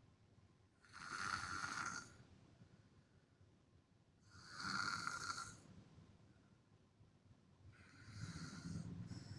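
A sleeper snoring: three rasping snore breaths about three and a half seconds apart, each lasting a little over a second. The third is deeper.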